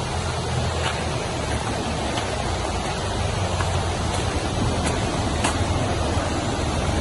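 Steady rushing of running water from a rain-swollen river and runoff, with a low rumble under it and a few faint ticks.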